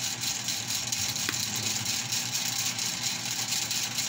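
Steady vehicle engine running under a continuous hiss of noise, with one short click about a second in.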